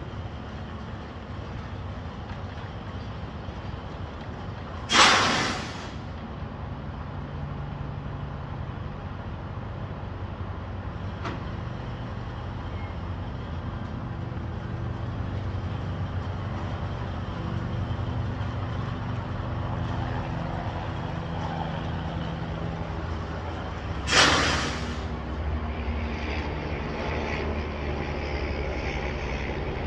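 Semi-truck's diesel engine running as it backs a trailer, with two short, loud hisses of the air brakes, about five seconds in and again near 24 seconds.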